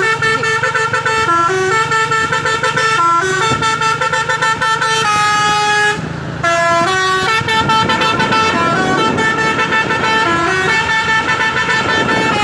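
Loud Basuri V3 telolet air horn on a UD Quester truck playing a tune: several horn notes sound together and change pitch in quick steps, with one short pause about six seconds in.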